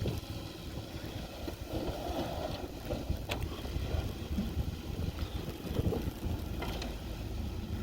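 Gusty wind rumbling on the microphone, rising and falling, with a short click about a third of the way in.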